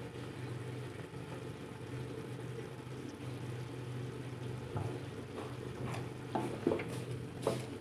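Spiced gravy sizzling in a frying pan around stuffed bitter gourds, as the masala cooks down, over a steady low hum. From about five seconds in, a wooden spatula gives several light knocks against the pan and food.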